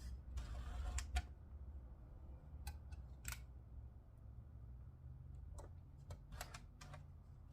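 Scattered light clicks and taps as plastic radio-mounting parts are handled and adjusted by hand, with a brief rustle about half a second in and a faint low hum underneath.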